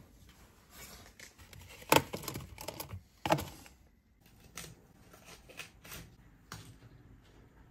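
Kitchen handling sounds as packaged food is taken from the fridge and a cauliflower is handled: two sharp knocks about two and three seconds in, then softer taps and rustles.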